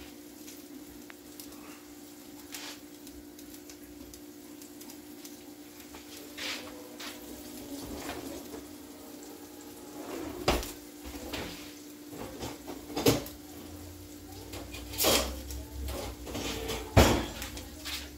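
Metal kitchen utensils and cutlery clattering, a handful of sharp clinks and knocks starting about ten seconds in, the loudest near the end, over a steady low hum.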